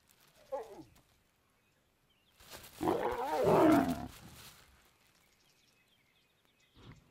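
Lions growling in a brief scuffle: a short falling growl near the start, then a loud burst of growls lasting under two seconds, about two and a half seconds in.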